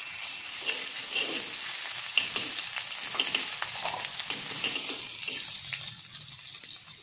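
Ginger-garlic paste sizzling in hot oil in a metal kadai, stirred with a steel spoon that scrapes and ticks against the pan. The loud sizzle eases off near the end.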